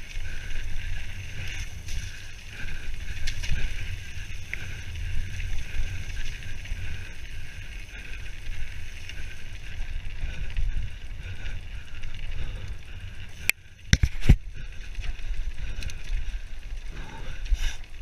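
Mountain bike descending a gravel forest trail at speed: wind buffeting the camera microphone over a steady rumble of tyres on the dirt. About fourteen seconds in, a quick cluster of sharp knocks.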